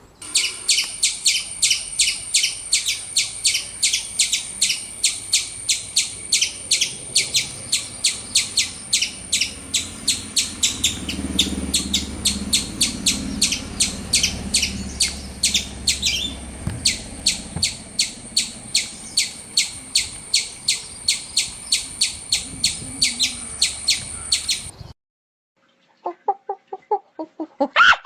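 A bird chirping rapidly and regularly, about three sharp high chirps a second over a steady high-pitched whine, stopping abruptly a few seconds before the end. Near the end come a few short pitched calls of a different animal, like a hen clucking.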